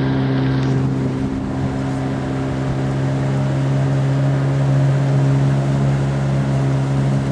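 Pontoon boat's outboard motor running at a steady cruising speed: a constant, even-pitched low drone, with wind and water noise around it.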